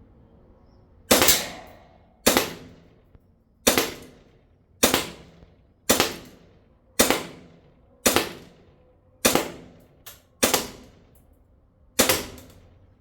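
STI 2011 Combat Master airsoft pistol firing about ten single shots at a paper target, roughly one a second. Each shot is a sharp crack that dies away over about half a second.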